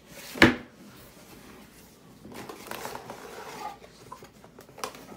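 Handling of a cardboard toy-kit box and its contents: a sharp knock about half a second in, then soft rustling of packaging and paper, and a small click near the end.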